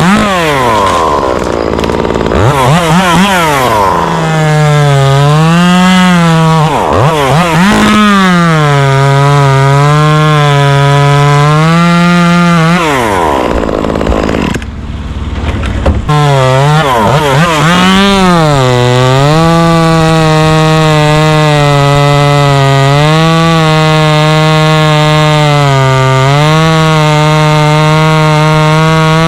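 Two-stroke chainsaw running at full throttle and cutting wood, its pitch sagging under load and recovering again and again. It is revved up and down sharply at the start, drops off briefly about halfway through, then holds a steady high pitch with small dips as it cuts.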